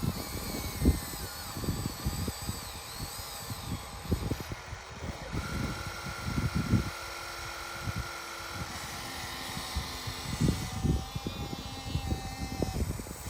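RC excavator at work: small electric motors whining, sliding in pitch and then holding steady, under many irregular knocks and clunks from the bucket, tracks and dirt.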